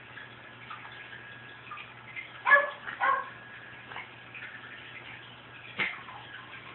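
A cat's sneezing fit: short, sudden sneezes, two close together about two and a half seconds in, a fainter one about four seconds in and another near six seconds.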